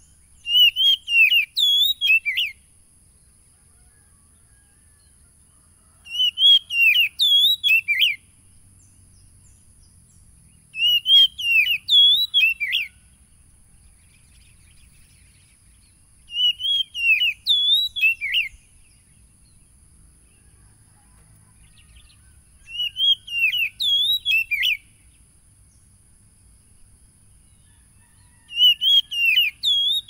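Oriental magpie-robin (kacer) calling in six short bursts of rapid sweeping notes, each about two seconds long, repeated every five or six seconds.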